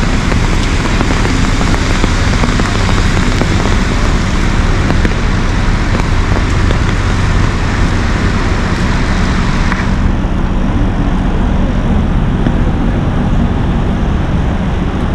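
Heavy rain on a city street: a steady hiss of rain over a low rumble and hum of traffic. A little before ten seconds in, the hiss turns duller as its high end drops away.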